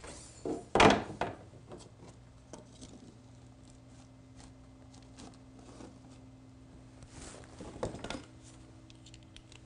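A long level set down on a wooden filler strip with a sharp knock about a second in, then scattered light wooden clicks and taps as the strip and its shims are handled, with a second, smaller knock near the end.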